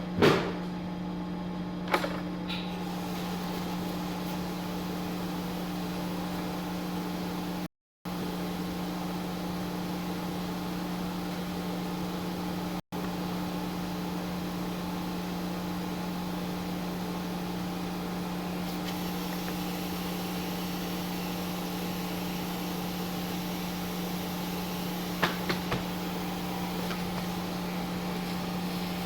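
Electric paper guillotine cutter running with a steady, even hum from its motor. A few sharp clicks come near the start and again near the end.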